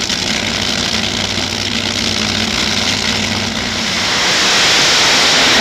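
Two nitro Funny Car drag racers running at the starting line, heard through a camcorder microphone. About four seconds in, the sound swells into a louder, hissy wash as they go to full throttle down the track.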